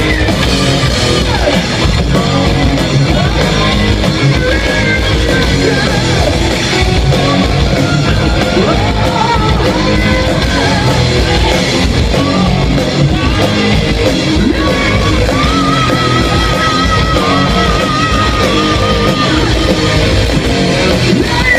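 Rock band playing live and loud, with electric guitar prominent. About three quarters of the way through, a held, wavering note sits above the band.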